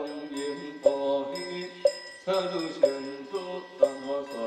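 Wooden fish (muyu) struck with a mallet about once a second, a hollow knock keeping time under a group's Taoist scripture chant.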